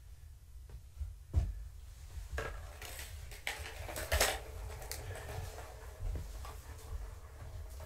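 Orange plastic ball-track cat toy being handled and set down on the carpet, with several hard plastic knocks and a clatter, the loudest about four seconds in.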